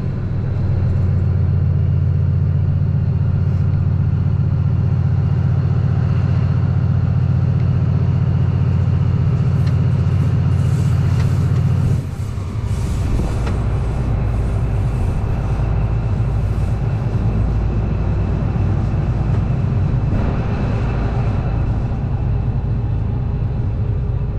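Vehicle engine droning steadily under power with a deep, even tone, then easing off about twelve seconds in to a lower, rougher rumble.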